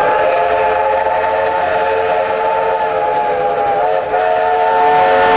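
A train whistle sounding a long, loud chord of several steady notes over the hiss and rhythmic chuff of a moving train. The whistle breaks briefly about four seconds in, then cuts off.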